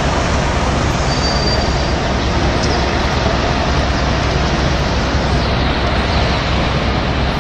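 City street traffic: a steady, dense noise of cars and taxis driving past, with a faint brief high squeal about a second in.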